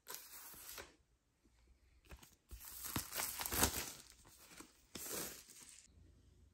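Packaging on a vinyl record being torn open and crinkled, in three spells of tearing, the longest and loudest in the middle.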